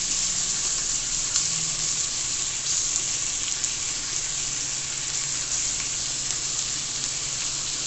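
Stuffed chicken breasts sizzling steadily on a hot grill, with scattered small crackling pops; the sizzle comes from the melting cheese touching the grill.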